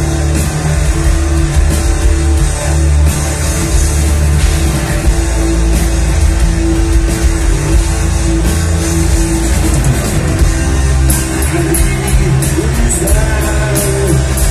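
Heavy metal band playing live through a club PA: distorted electric guitars, bass and drums, loud and dense.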